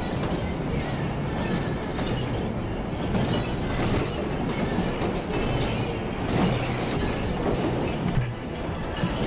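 Cabin noise of a Scania K360IB coach on the move, heard from the driver's cab: a steady engine and road drone with light rattles and clicks from the interior.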